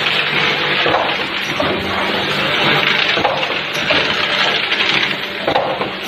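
Pharmaceutical packaging machinery running: a steady, loud mechanical noise with a low hum and a few soft knocks.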